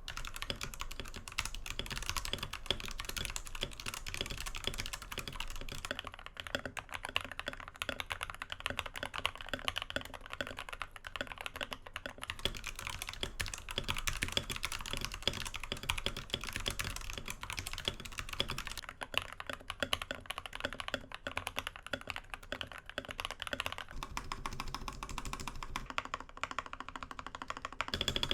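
Fast, steady typing on an RK61 60% mechanical keyboard with lubed Cherry MX Red linear switches and PBT keycaps, foam- and tape-modded, giving a soft, muted clack.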